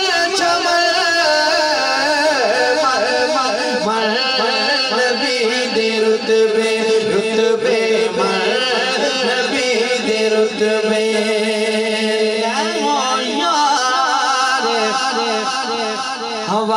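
A naat being sung: a wavering, ornamented vocal line over steady held notes underneath.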